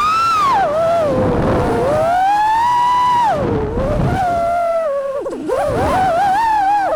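FPV freestyle quadcopter's brushless motors whining, the pitch sweeping up and down as the throttle changes, with a brief dip about five seconds in.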